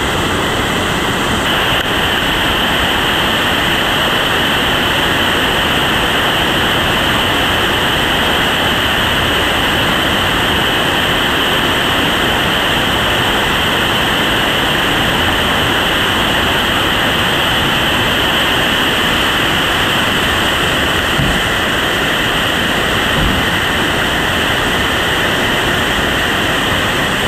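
Whitewater rapids rushing steadily: a loud, even hiss of churning water running between boulders.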